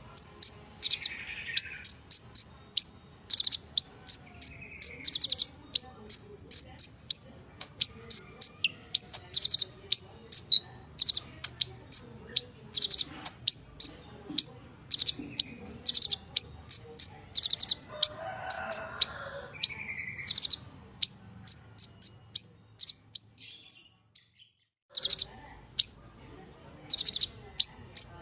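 Purple-throated sunbird (konin) singing a fast run of very high, thin chirps and short buzzing trills, several notes a second, breaking off for about a second near the end before starting again.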